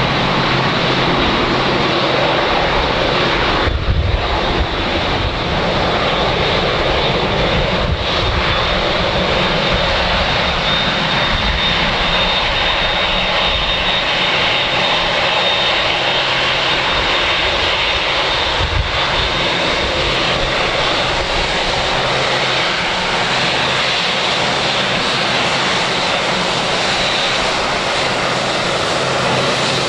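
A Boeing 747-8F freighter's GE GEnx-2B turbofans running as it taxies close past. They make a steady rushing noise with a high whine on top.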